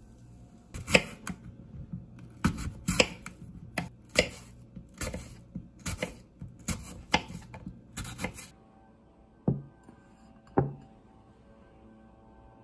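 Kitchen knife slicing an apple into wedges on a wooden cutting board: a run of sharp knocks, about two a second, as the blade hits the board, stopping after about eight seconds. Two duller single knocks follow.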